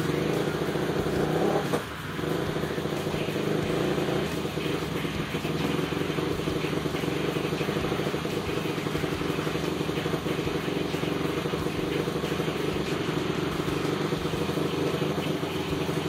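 Single-cylinder four-stroke engine of a Honda TRX450R quad, freshly rebuilt to 501cc with a stroker crank and big bore kit, running steadily at idle, with a brief dip about two seconds in.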